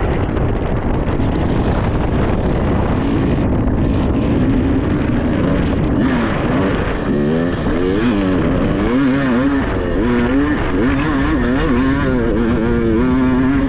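Dirt bike engine under way on a trail ride, over a dense rush of noise. Its pitch holds fairly steady for a few seconds, then rises and falls rapidly with the throttle through the second half.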